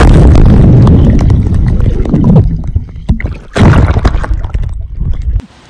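Muffled underwater churning and bubbling in a swimming pool, heard through a phone in a waterproof case as water is stirred up by a dive. A loud rumble with knocks for the first two seconds or so, a second surge of bubbling about three and a half seconds in, then it cuts off abruptly just before the end.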